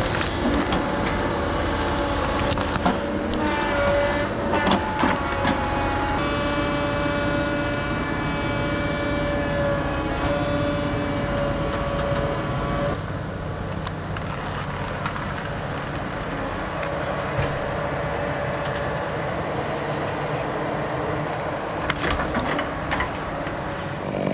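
Log skidder's diesel engine running steadily with a held whining tone, and a few metallic clanks and knocks about four seconds in and again near the end.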